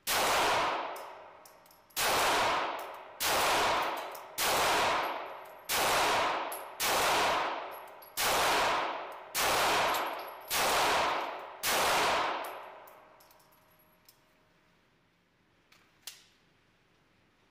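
Ten pistol shots from a 9mm competition pistol, fired at a steady pace of about one every 1.2 seconds, each trailing a long echo off the concrete walls of an indoor range. A couple of faint clicks follow near the end.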